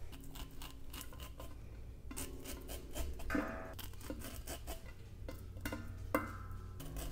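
Knife cutting kernels off ears of sweet corn into a stainless stockpot: a run of short, irregular scraping strokes down the cob.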